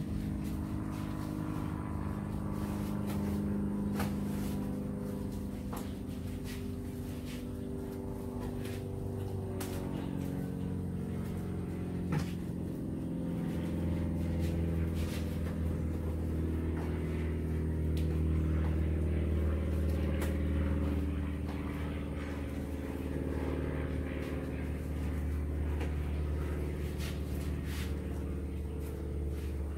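A steady engine-like drone whose pitch shifts a few times and grows louder partway through, with scattered light taps and knocks.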